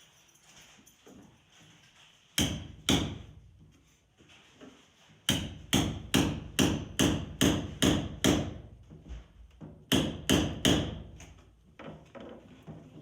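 Hammer blows on wooden shelving being knocked apart: two blows, then a quick run of about ten strikes, then three more.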